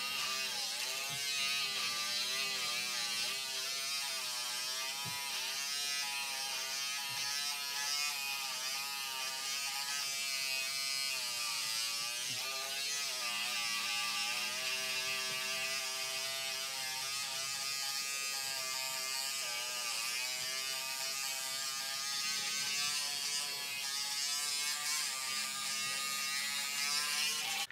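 Electric shaver buzzing steadily while trimming beard stubble, its pitch wavering up and down as it is worked over the face; it cuts off at the very end.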